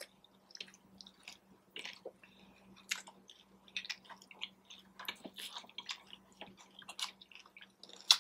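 A person chewing and biting food close to the microphone: an irregular string of short, crisp mouth clicks and crunches, with one sharper click near the end.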